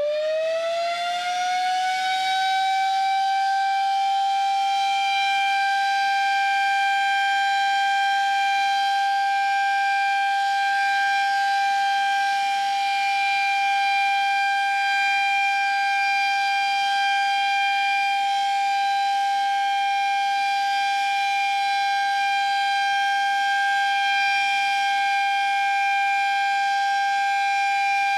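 Sterling Model M electromechanical siren, with a rotor at each end, sounding its steady alert signal. Its pitch finishes climbing in the first couple of seconds as the rotors come up to speed, then holds a level two-tone chord.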